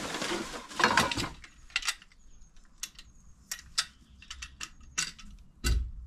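Plastic wrapping rustling and light clicks and clinks of metal bike-rack parts being handled and lifted from their box, with a heavier thump near the end as a part is set down.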